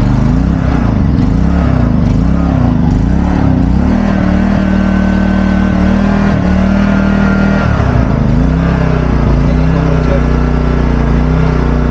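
Toyohama 3500i inverter generator's small petrol engine running just after its first start. Its speed wavers up and down for the first few seconds, then holds steady, dips briefly about eight seconds in, and settles.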